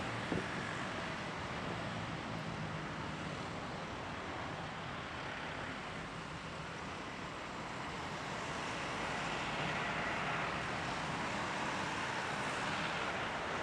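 Boeing 737-800's CFM56-7B turbofan engines at takeoff thrust as the airliner accelerates down the runway: a steady rushing noise that grows a little louder about nine seconds in. A brief knock just after the start.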